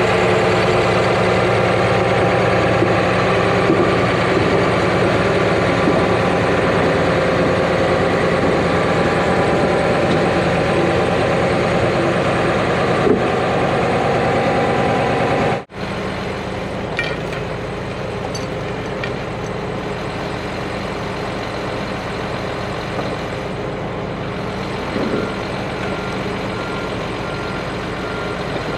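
John Deere 850J crawler dozer's diesel engine running steadily. The sound cuts out for a moment a little past halfway and then goes on quieter. Near the end there is a faint, evenly repeated beep.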